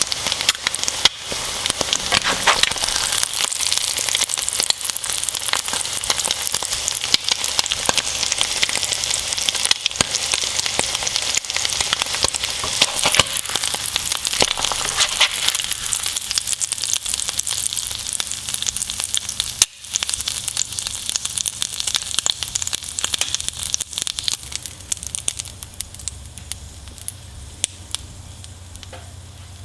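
Bacon and eggs frying in a pan: a dense, steady sizzle full of small pops and crackles. It breaks off for a moment about two-thirds through and is quieter over the last few seconds.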